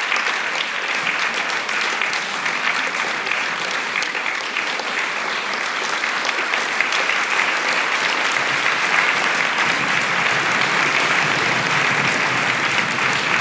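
Concert audience applauding steadily, a dense patter of many hands clapping, as performers come on stage.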